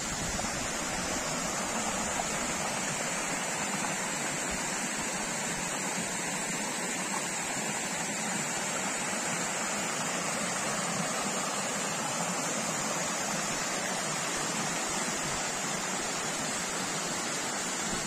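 Small cascading waterfall and the stream below it: a steady rush of falling and running water.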